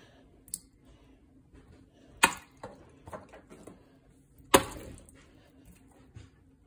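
Two sharp knocks about two seconds apart, the second the louder, with lighter clicks and taps in between, as of hard objects being handled and set down.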